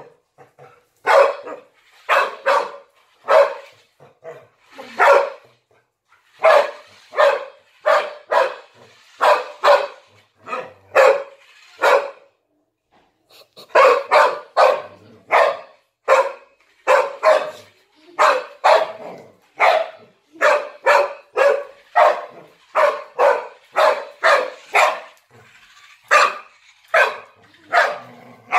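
Belgian Malinois barking over and over, a long run of short sharp barks about two a second, with a brief break about halfway.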